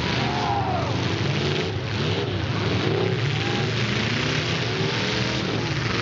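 Several demolition derby cars' engines running and revving together, their pitch rising and falling over and over.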